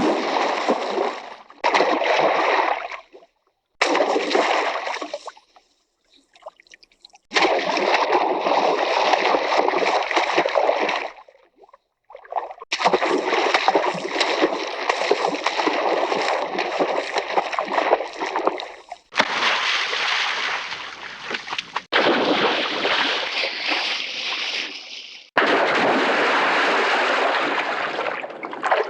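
A run of separate classic Hanna-Barbera cartoon sound effects, about eight in a row with short gaps, each a second to several seconds of dense rushing noise.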